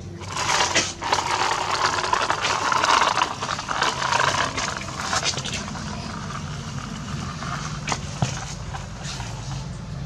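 Plastic toy vehicle wheels rolling and scraping over gritty concrete and sand, loudest in the first half and quieter after about five seconds, with a few small clicks. A steady low hum runs underneath.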